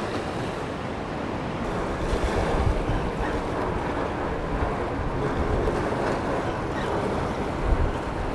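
Small waves washing on the shore, with wind buffeting the microphone in low gusts.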